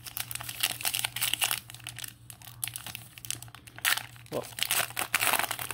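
Trading card pack wrapper crinkling and tearing as it is handled and ripped open, in dense irregular crackles.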